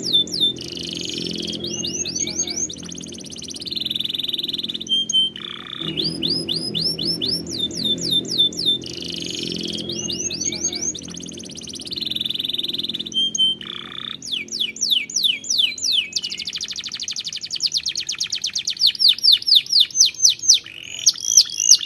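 Domestic canary singing in tours: runs of quick down-slurred whistled notes repeated several times each, alternating with buzzy rolls, and a very fast rattling trill near the end. A low steady hum lies underneath in the first half.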